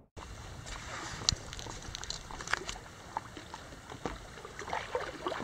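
Lake water lapping and splashing against a stand-up paddleboard: a string of small, irregular slaps and trickles over a steady hiss.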